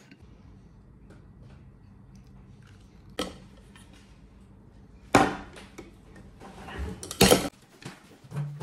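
Tableware being handled: a sharp knock about three seconds in, then louder clattering knocks about five and seven seconds in, as a drinking cup and its lid are set down and moved on a table.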